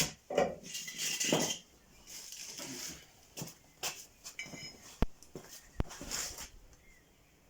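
Scattered metallic clinks and knocks from metal parts being moved and handled, with two sharp knocks about five and six seconds in.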